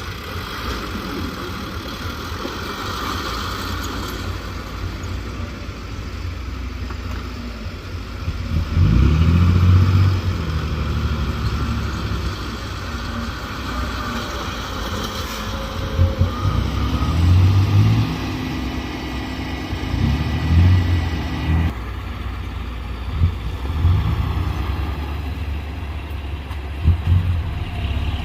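Diesel engine of heavy earthmoving machinery running under load, its low rumble surging louder several times as the machine works.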